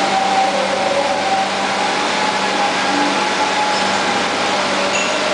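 Induction hardening machine at work on a red-hot steel shaft: a steady hiss with a constant low hum and a higher whine that wavers slightly in pitch.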